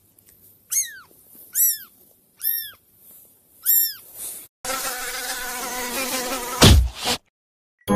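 A tiny kitten mewing four times, in short, high-pitched squeaks that rise and fall. About five seconds in comes a steady buzz, with a sharp falling sweep near the end before it cuts off.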